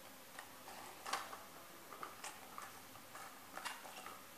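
Dry breadsticks cracking and crunching under a boot sole pressed down on them: an irregular scatter of faint, sharp snaps, the loudest about a second in.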